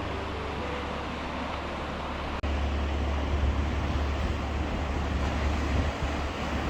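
Strong wind buffeting the microphone, a heavy fluctuating rumble over a hiss of open sea air. A brief dropout about two and a half seconds in, after which the wind rumble is louder.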